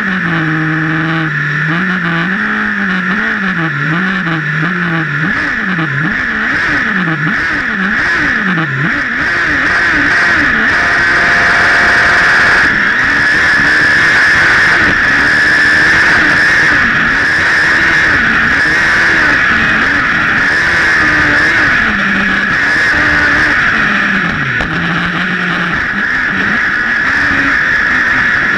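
Sprint 1600 autocross buggy's engine heard on board, under racing load. The revs rise and fall quickly over and over for the first several seconds as it sets off. It then runs hard at speed under a loud, noisy roar, revs dipping and climbing again through the corners.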